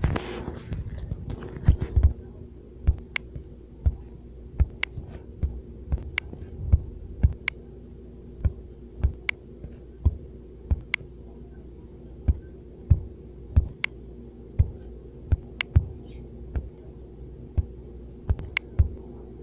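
Irregular sharp taps or clicks, about one or two a second, over a steady low hum.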